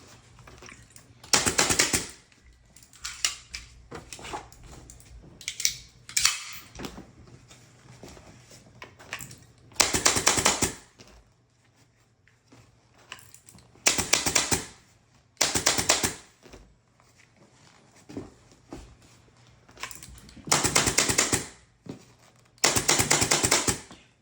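Repeated bursts of rapid mechanical clicking, each about a second long, about six loud ones with a few fainter ones between, separated by quiet pauses.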